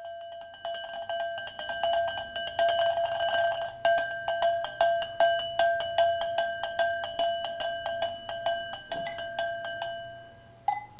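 Metal bell rung steadily, a few strikes a second, each strike renewing the same clear ringing tone. The ringing dies away about ten seconds in, and a single short chime follows near the end.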